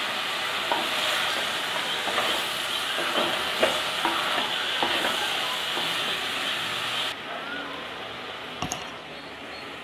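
Mixed vegetables sizzling as they sauté in oil in a clay pot, with a wooden spatula stirring them and knocking against the pot. About seven seconds in the sizzle turns quieter.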